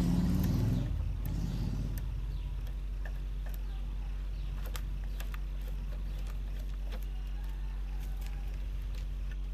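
A steady low drone with a few faint, scattered metallic clicks as a motorcycle's top fork-stem bolt is unscrewed by hand.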